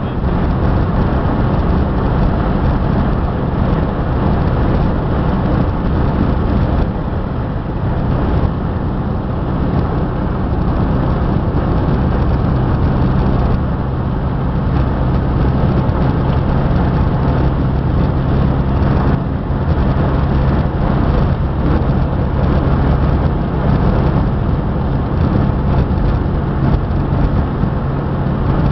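A motor vehicle running steadily: a constant low engine drone under loud rushing travel noise, with no clear change in speed.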